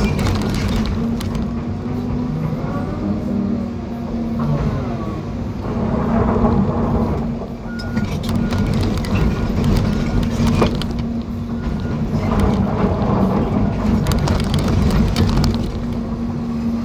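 John Deere 350G excavator heard from inside its cab: the diesel engine runs steadily under load while the hydraulics rise and fall in pitch as the boom and bucket work. Rip rap knocks against the bucket now and then, and a few short beeps sound near the middle.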